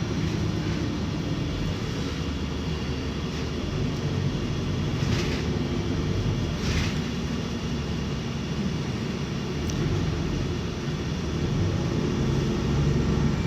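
City bus running, heard from inside the passenger cabin: a steady low engine and road rumble, with two short hisses about five and seven seconds in.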